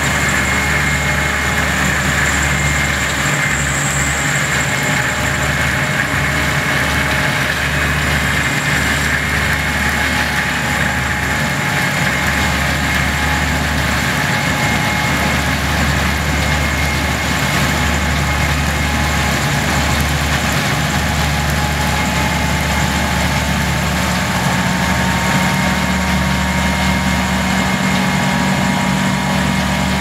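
Heavy diesel farm machinery running steadily: a Ploeger self-propelled pea harvester working the field, its engine hum unbroken, with a thin whine that rises slightly in pitch over the second half.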